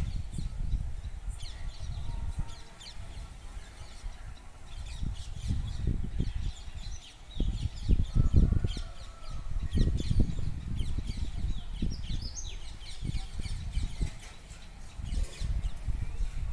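Many small birds chirping in short, scattered calls, over a low gusting rumble of wind buffeting the microphone that swells loudest about eight seconds in.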